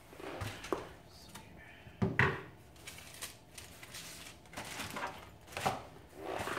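Packaging and small accessories being handled on a workbench: irregular rustles, scrapes and light knocks, the loudest a clatter about two seconds in.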